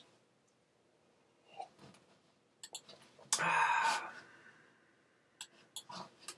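A man's breathy sigh lasting under a second, about halfway through, with a few small clicks before and after it in a quiet small room.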